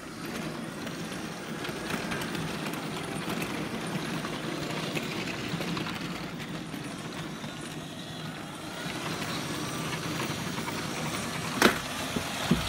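Long Märklin HO-scale model train of coaches and freight wagons rolling past on metal track: a steady rumble of wheels with small clicks, and one sharp knock near the end.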